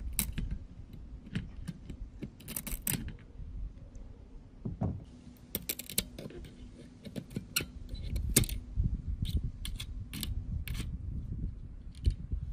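Metal hand tools (pliers, then a screwdriver) clicking, tapping and scraping against parts on a TV's circuit board, in scattered sharp clicks. A faint steady hum comes in about five seconds in.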